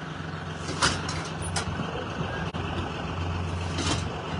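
Engine of the tractor pulling a tour wagon, running steadily at low revs, with a few short hissing sounds over it.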